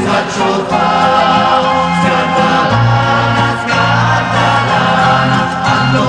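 Music: a group of voices singing together over held low notes.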